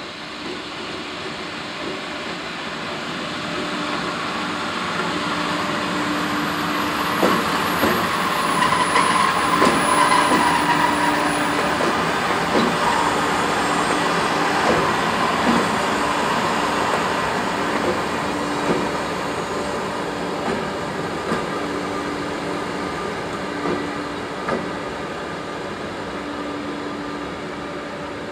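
Pair of VR Sr1 electric locomotives passing at low speed: a steady hum, with wheels clicking over rail joints and points. It grows louder to a peak about a third of the way in, with a brief high squeal as they pass closest, then fades as they roll away.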